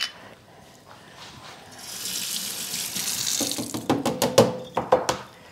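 A soft, even hiss swells for about two seconds. It is followed by a quick run of clicks and knocks as a jar and a spoon are picked up on a kitchen counter.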